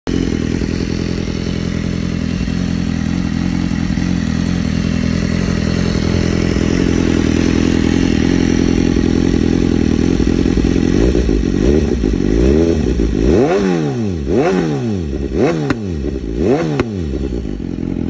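BMW S1000R's inline-four engine through an Akrapovic exhaust, idling steadily, then blipped past the middle in quick revs about once a second, each rising and falling, with sharp cracks as the revs drop.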